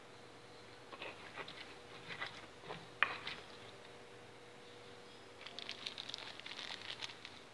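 Wooden pestle knocking and scraping in a stone mortar as thick sambal is mixed: scattered knocks, the sharpest about three seconds in, then a run of quick faint crackles near the end.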